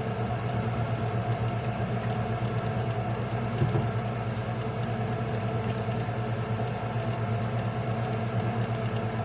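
Vehicle engine running steadily at an even speed, a constant low hum with no change in pitch.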